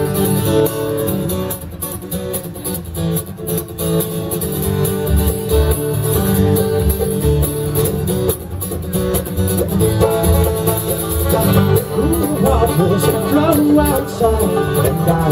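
Bluegrass band playing an instrumental opening on banjo, acoustic guitar and upright bass, with quick plucked banjo and guitar notes over a steady walking bass.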